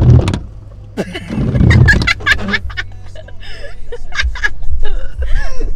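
Background music with a young woman laughing.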